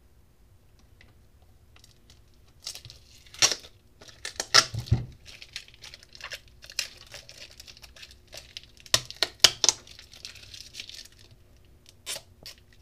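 Plastic wrapping and tape on a battery pack crinkling and tearing as they are pulled off by hand. It starts about two and a half seconds in and goes in bursts of crackling with several sharp, loud cracks, a last one near the end.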